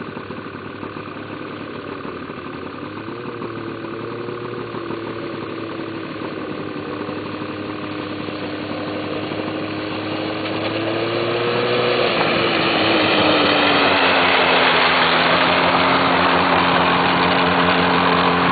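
800cc Ski-Doo two-stroke snowmobile engine running at a steady pitch, growing louder as it comes nearer. About two-thirds of the way through it gets markedly louder and its note drops, then holds steady.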